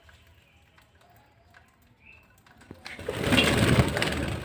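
A budgerigar gives one short rising chirp about two seconds in. About a second later a loud, rough noise starts and lasts about two seconds.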